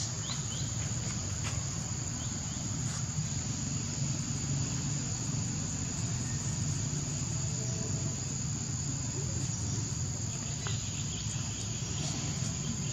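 Steady, high-pitched chorus of insects droning without a break, over a low steady hum.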